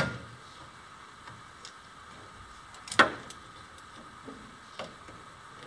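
A few sharp metallic clicks and taps as pliers and a bearing unit are knocked against a steel frame while the bearing is positioned for mounting. The loudest click comes about three seconds in.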